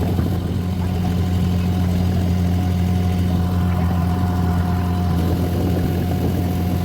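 Boat engine running steadily, a deep even drone.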